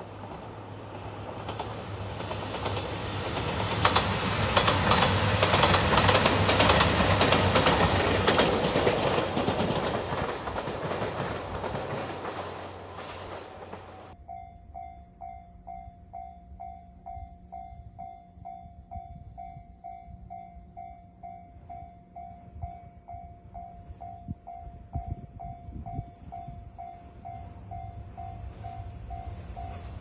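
A JR Shikoku 2700 series diesel limited express train passing close by, its engine and wheels on the rails loudest in the first half and fading out. About halfway through it gives way to a Japanese level-crossing warning bell ringing steadily about twice a second, with a diesel train faintly approaching near the end.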